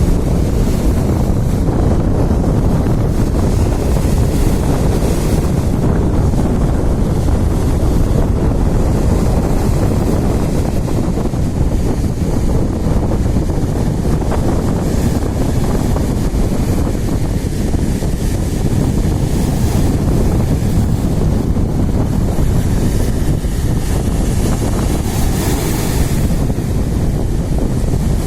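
Sea surf and strong wind: a steady low rumble of wind buffeting the microphone, with the hiss of waves swelling up every several seconds.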